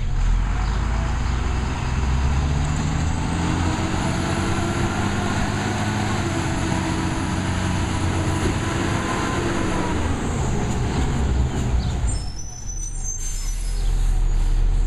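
Automated side-loader garbage truck's diesel engine revving up and holding high, with a thin high whine above it, then easing off about twelve seconds in before picking up again as the truck moves on.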